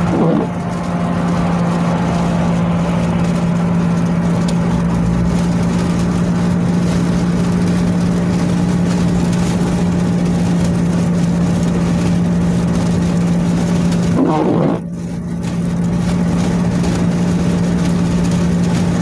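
Steady drone of a car heard from inside the cabin while driving: engine and road noise with a constant low hum, dipping briefly about fifteen seconds in.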